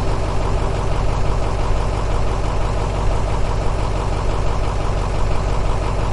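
A small engine running steadily at idle with a fast, even pulsing.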